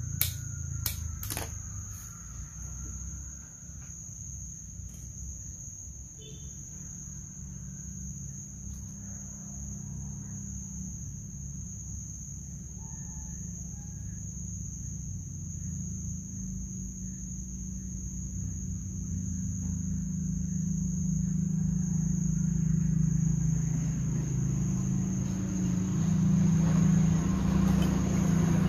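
Background ambience: a steady high-pitched drone over a low rumble that grows louder over the last ten seconds or so, with three sharp clicks in the first second and a half.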